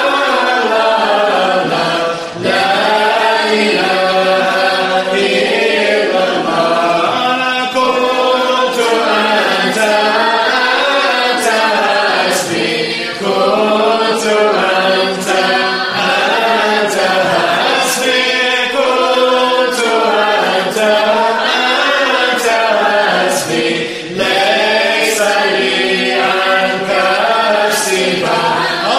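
A group of voices chanting an Arabic Sufi qasida together in a dhikr, a continuous rising-and-falling melody sung in unison.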